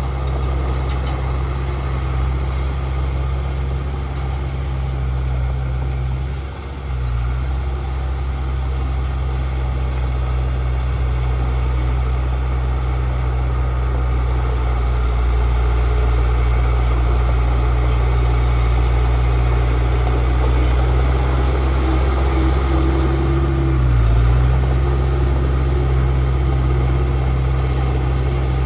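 Heavy diesel earthmoving engine running steadily, with a strong low drone. Its note briefly sags and recovers twice, about a quarter of the way in and again near the end.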